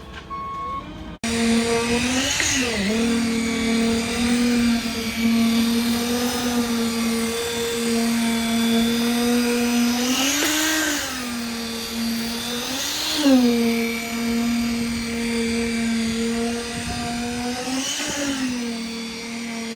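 A concrete mixer truck's reversing beeps, then, about a second in, its engine running with a steady whine under load during the pour. The engine briefly revs up and settles back four times.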